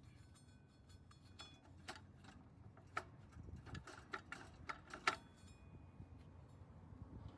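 Faint, scattered metallic clicks and clinks, the sharpest about five seconds in, as a steel extension spring is unhooked from between a snowblower's drive plate assembly and frame.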